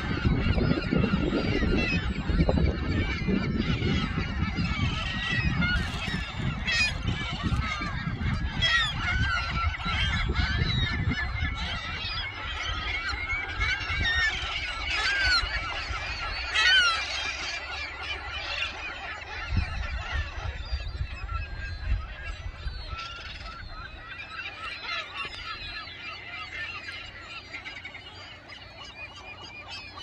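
A gull colony calling: many overlapping squawks and yelping calls, busiest in the middle and thinning out toward the end. A low rumble runs under the first dozen seconds or so, then fades.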